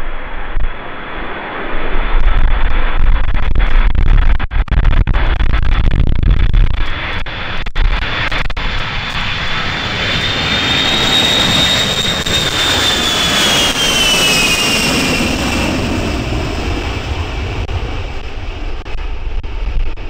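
The four Pratt & Whitney TF33 turbofan engines of a Boeing E-3A Sentry AWACS on final approach: a loud jet roar with heavy low rumble, and a high engine whine that climbs slightly and then drops in pitch a little past the middle as the aircraft passes.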